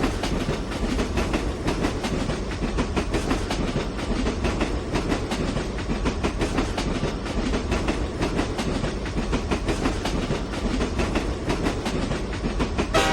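Train sound effect from GarageBand's Movie Machine Live Loops: a steady train rumble with a rapid clickety-clack of wheels, cutting in suddenly. A train horn sounds right at the end.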